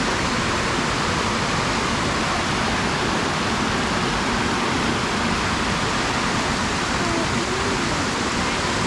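Sipyen waterfall's falling water rushing steadily as a loud, even hiss.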